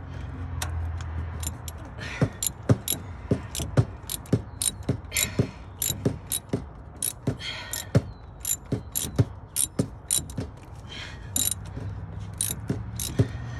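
Socket ratchet clicking as it is worked back and forth to loosen a spark plug: sharp clicks, a few a second, coming in irregular spurts.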